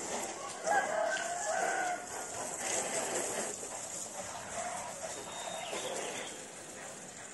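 Garden hose spraying water onto a car, a steady hiss. A rooster crows about a second in, the loudest sound here.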